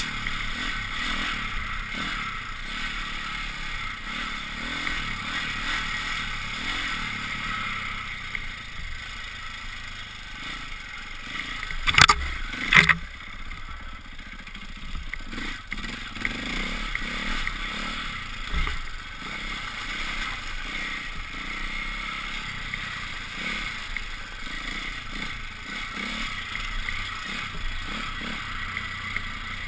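Off-road motorcycle engine running steadily under way. About twelve seconds in come two sharp knocks less than a second apart, the loudest sounds here.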